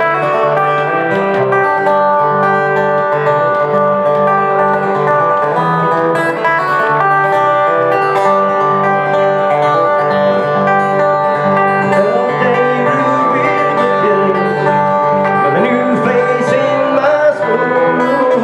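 Folk-punk band playing an instrumental passage: plucked strings and sustained melody notes over a steady, repeating bass line.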